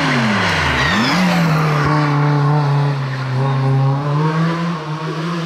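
Volkswagen Polo G60 hillclimb car's engine: the revs fall as it comes through the bend, then it revs up sharply about a second in and holds a steady high note under hard acceleration.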